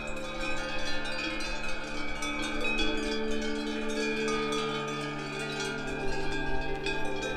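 Cowbells on a small herd of grazing cows ringing together in a continuous metallic jangle of many overlapping tones.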